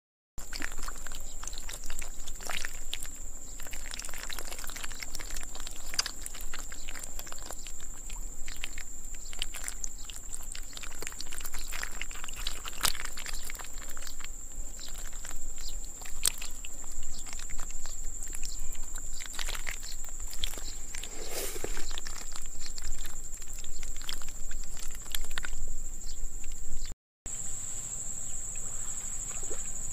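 Fish flapping and splashing in a shallow muddy puddle, a scatter of wet slaps and clicks, over a steady high-pitched insect drone. The sound drops out for a moment near the end, then the insect drone carries on.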